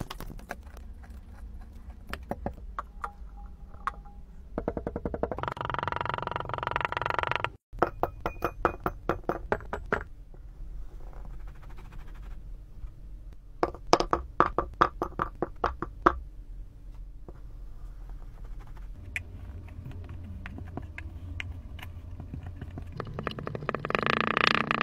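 Kinetic sand being pressed and broken up in a glass: runs of rapid, crisp crackling clicks as the sand packs and crumbles. A few stretches of music come in between.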